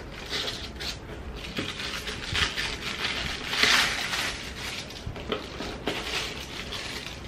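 Packaging being unwrapped and handled: an irregular run of rustles, scrapes and light knocks, loudest a little past the middle.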